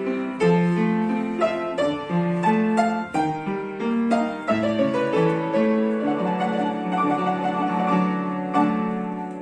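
Piano music: a gentle melody of struck notes over sustained lower notes, fading near the end.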